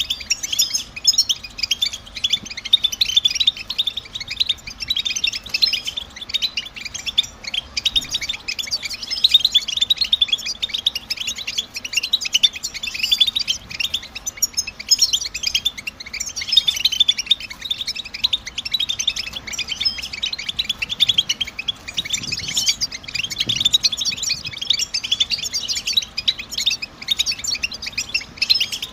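European goldfinches chattering and twittering: a dense, unbroken stream of rapid high chirps and trills.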